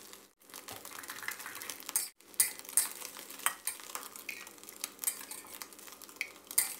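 A spatula scraping and tapping against a pan while chopped fried egg is pushed together and scooped up, with irregular sharp clicks and scrapes.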